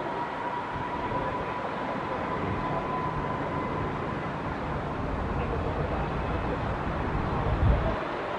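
Boeing AH-64E Apache attack helicopters running, a steady rumble with a thin whine over the first half. A brief low thump near the end.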